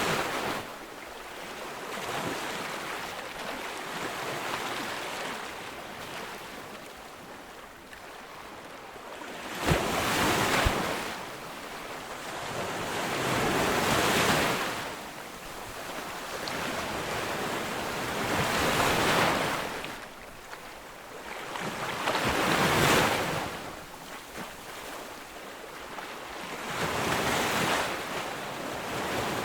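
Ocean surf breaking on a beach: waves crash one after another every few seconds, each a swelling rush of white noise that fades back into the steady wash, with the sharpest crash about ten seconds in.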